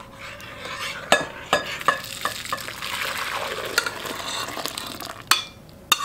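Hot, just-boiled salep milk pouring from a stainless steel pot into a glass bowl: a steady splashing pour, with several light metal clinks about a second in and two sharper knocks near the end.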